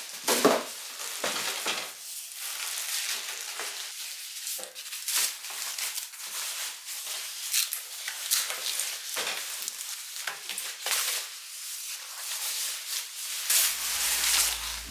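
Kitchen cooking sounds: irregular stirring and scraping over a crackling hiss, like food sizzling or dry ingredients being mixed. Background music comes in near the end.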